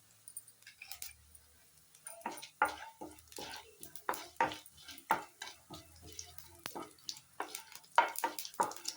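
A spoon stirring a tadka of mustard seeds, urad dal, cumin and dried red chillies frying in oil, knocking and scraping against the pan about twice a second. It starts about two seconds in.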